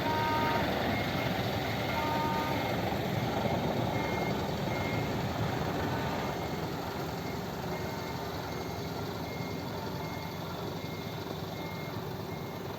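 Tour bus reversing alarm beeping at a high pitch about once a second, over the steady noise of the bus's running engine.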